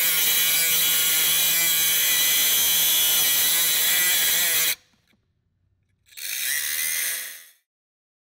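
Milwaukee cordless die grinder running at speed and grinding on metal with a steady high whine. It cuts off about halfway through, then runs again briefly for about a second and a half.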